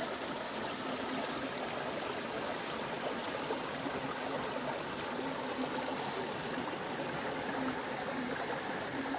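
Small forest stream flowing over rocks: a steady rush of running water.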